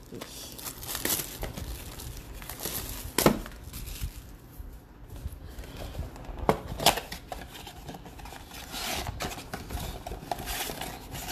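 A cardboard trading-card box being torn open and handled: rustling and crinkling packaging, with a few sharp snaps and taps, the strongest about three seconds in and again near seven seconds in.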